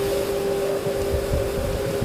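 Steady rushing noise with irregular low buffeting, like wind on the microphone, over a constant even hum.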